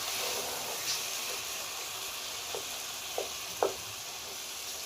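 Meat karahi sizzling steadily in hot oil in a pan as it is stirred, with a few sharp clinks of the spoon against the pan.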